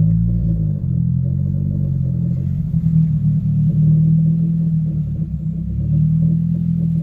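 Turbocharged Honda Civic's four-cylinder engine running, its pitch shifting in the first second or so and then holding mostly steady.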